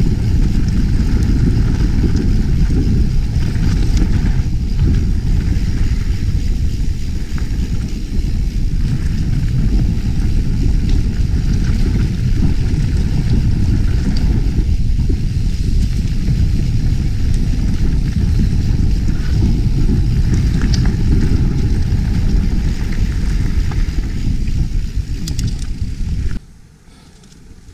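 Mountain bike riding fast on a dirt singletrack, heard from a camera worn by the rider: a loud, steady rumble of wind on the microphone and tyres on the trail. It drops away abruptly near the end.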